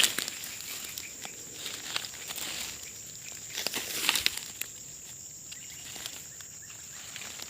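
Rustling and scattered crackles of someone moving through dry undergrowth, loudest about three and a half to four seconds in, over a steady high-pitched insect drone.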